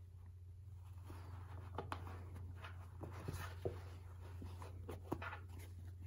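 Faint scratching and rustling of a needle and embroidery floss drawn through a cotton cap held in a wooden embroidery hoop while French knots are stitched, with scattered small ticks as the hoop and fabric are handled, over a low steady hum.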